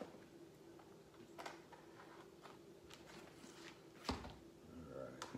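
Faint scrapes and small clicks of a pen knife cutting into a cardboard mailer, with a dull knock about four seconds in as the package is handled.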